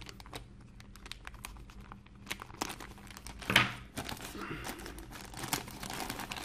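Thin clear plastic bag crinkling in irregular crackles as a chrome-plated model-kit sprue is worked out of it, with one louder crackle about three and a half seconds in.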